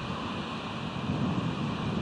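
Steady wind rushing over an exposed outdoor microphone, with ocean surf below blended into an even roar.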